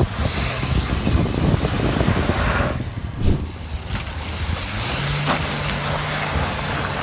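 Dacia Duster's engine working under load as the SUV crawls through a deep dirt rut, its wheels spinning and flinging loose dirt. About five seconds in, the engine settles into a steady held note.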